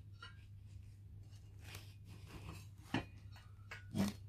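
Soft rustling of foam packing sheets as heavy laser-cut steel welding-square plates are handled, with two short knocks, about three and four seconds in, as a steel plate is lifted off the others.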